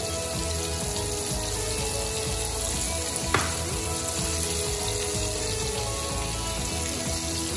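Batter-coated fish fillet pieces frying in a pan of hot oil: a steady sizzle. A single sharp click comes about three seconds in.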